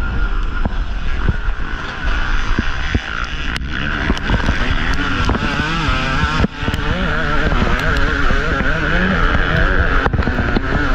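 2023 Yamaha YZ250 two-stroke single-cylinder dirt bike engine, revving up and down as the throttle is worked over rough terrain, with a brief throttle chop about six and a half seconds in. Wind rumbles on the microphone, with sharp knocks from the bike hitting ruts and rocks.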